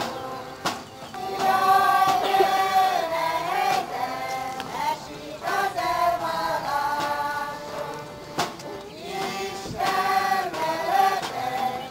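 A group of voices singing a folk song together, line after line, with short breaks between the lines.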